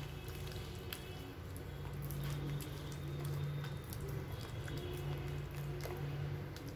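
Hand beating a thick gram-flour batter in a bowl: wet squelching and slapping with scattered soft clicks, over a low steady hum.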